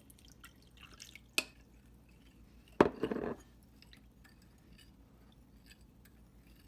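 Kitchen glassware clinking and liquid splashing as half a cup of water goes into the cornstarch and oyster sauce mixture: a sharp clink, then about three seconds in a louder knock with a short splash, followed by faint light taps.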